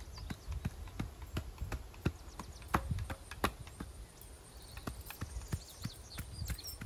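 Irregular sharp taps and knocks, several a second, over a low rumble.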